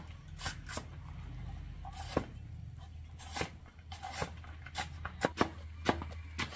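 Knife chopping green stalks on a wooden chopping block: sharp, irregularly spaced chops about one or two a second.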